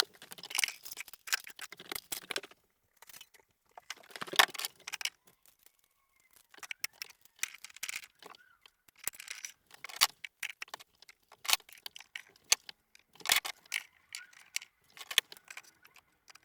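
Flat-pack shelves being assembled: irregular clusters of sharp clicks, clinks and rattles of small metal fittings and tools.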